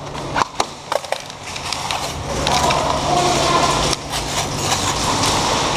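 Airsoft skirmish sounds: scattered sharp snaps of BB fire and impacts, several close together in the first second and a few more later, over a steady rustling noise.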